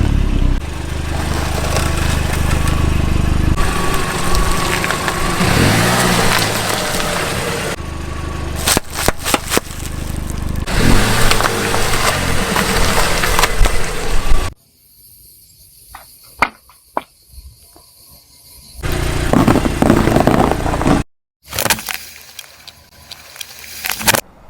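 A car's engine running while its tyres roll over objects and crush them, with a cluster of sharp cracks and crunches near the middle. The sound changes abruptly several times, with a quieter stretch of scattered clicks after the middle.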